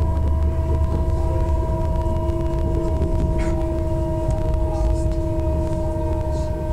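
Onboard running sound of an Odakyu 60000 series MSE motor car: a strong low rumble of the wheels on the track under a steady whine from its Toshiba IGBT-VVVF inverter and traction motors, which holds one pitch the whole time.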